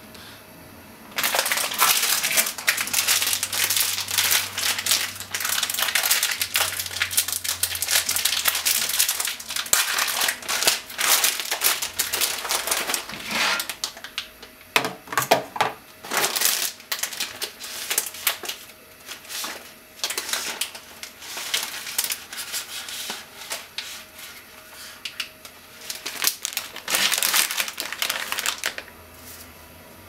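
Thin plastic being handled, crinkling and clicking in long bursts with short pauses: the plastic pasta cooker and its lid, and perhaps its wrapping, being taken out and handled.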